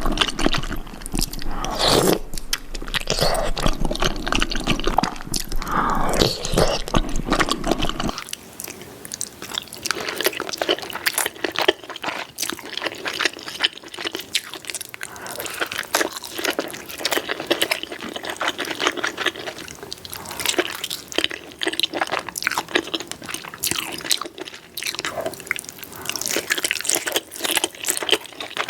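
Close-miked ASMR eating of soft-boiled eggs: wet smacking, slurping and chewing, with many small mouth clicks. A low hum sits under the first eight seconds.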